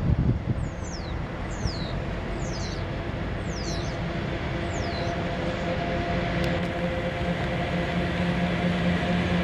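PKP Cargo EU07 electric locomotive hauling a freight train of open wagons as it approaches and passes: a steady rumble with an electric hum of several tones that grows louder from about four seconds in.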